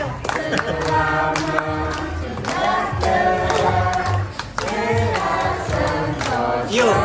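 A group of children and adults singing a birthday song together, clapping their hands in time.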